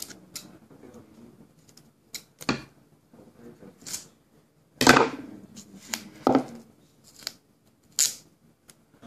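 Orange duct tape being cut with scissors and pulled and handled: a few separate snips and short rips about a second or two apart, the loudest about five seconds in, with light rustling between.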